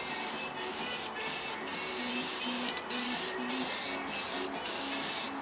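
Aerosol can of primer spraying onto a dirt bike frame in a string of short hissing bursts with brief pauses between them, each lasting about half a second to a second. Faint background music plays underneath.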